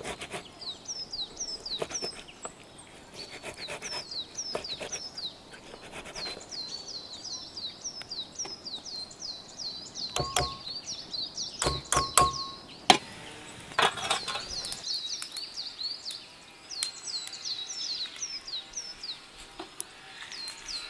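Tomatoes being grated on a metal box grater into a metal bowl, in quick rasping strokes, then about ten seconds in a knife scraping the pulp off the grater with sharp metallic clicks and brief ringing. A bird sings repeated quick downward chirps throughout.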